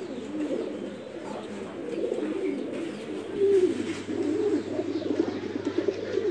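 English Trumpeter pigeons cooing in a loft, several birds overlapping in a steady, low, rolling coo.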